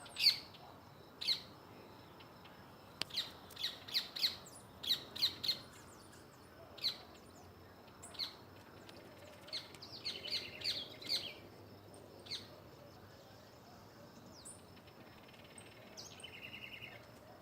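Small birds giving short, sharp alarm calls in quick clusters as they mob an owl. The calls thin out in the second half, with a short buzzy call near the end.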